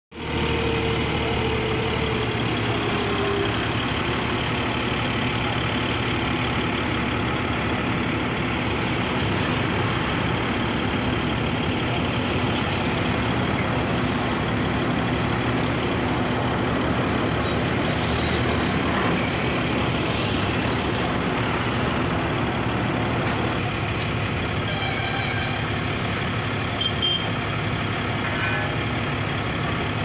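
Diesel engine of a TIL RT740B 40-ton rough-terrain crane running steadily, with a faint high whine that slides slightly down in pitch over the first few seconds.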